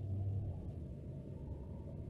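Low, steady rumble of a car on the move, engine and road noise, a little louder in the first half second.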